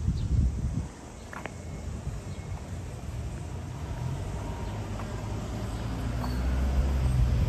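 Outdoor ambience: a brief rumble of wind on the microphone at the start, then the low hum of a motor vehicle engine growing steadily louder.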